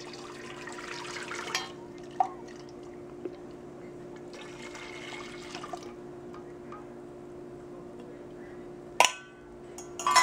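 Jaggery syrup poured through a small steel mesh strainer into a stainless steel pot: liquid splashing and trickling in two pours, one at the start and another about four seconds in. Near the end there are a couple of sharp metal clinks.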